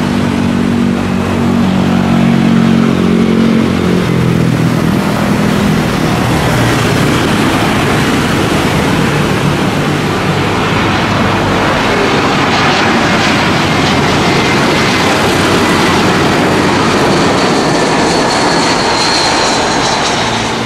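Jet engines of an Airbus A320-232, twin IAE V2500 turbofans, as the airliner comes in to land: a steady, loud jet noise. In the second half a high whine sinks slowly in pitch.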